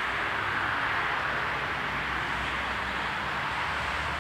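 AŽD 71 level-crossing warning bell ringing rapidly and continuously while the crossing is closed, with a low steady rumble underneath.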